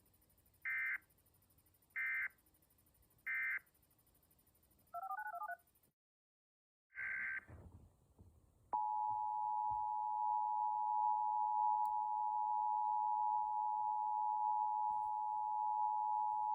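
Emergency Alert System data and attention tones. Three short bursts of SAME digital data tones come first, then a brief warbling chirp. After a second of silence comes one more data burst, then the two-tone EAS attention signal sounding steadily for about eight seconds, the alarm that announces an alert message.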